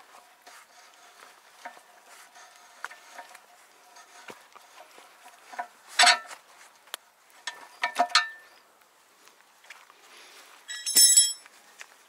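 Steel wrench and extension bar clinking and clicking against a Lehnhoff excavator quick coupler as its central screw is turned to retract the locking pins. Three loud metal clanks ring out, about halfway, around two-thirds in, and near the end.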